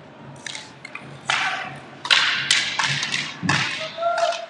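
Inline hockey play: a string of sharp stick-and-puck knocks and clacks, with a deeper thud about three and a half seconds in.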